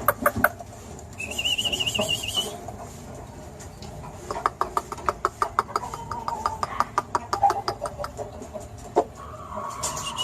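Aseel chickens clucking in quick runs of short notes, about eight a second, at the start and again from about four to eight seconds in. A high warbling trill sounds around one to two seconds in.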